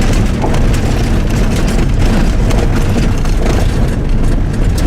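Steady low rumble of a moving road vehicle heard from inside, with frequent knocks and rattles from driving over a bumpy road.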